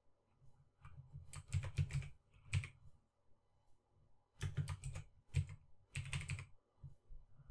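Typing on a computer keyboard: two short runs of keystrokes, the second beginning about four and a half seconds in.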